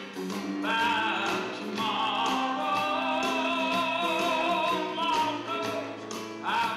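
Live music: a man singing with vibrato over a strummed acoustic guitar.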